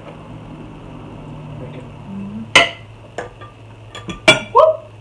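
Forks and a knife clinking against plates and dishes. There are a handful of sharp clinks, with a loud one about halfway through and a quick cluster near the end, the last one ringing briefly.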